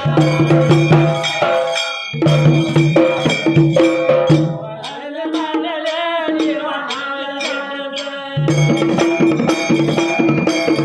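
Dhangari ovi folk song: men singing to a large dhol, a small hand drum and small clashing hand cymbals. The drums drop out for about three seconds midway, leaving the voice, then come back in.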